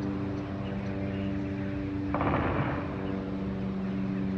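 A steady engine drone holding one even pitch, with a short rush of noise about two seconds in.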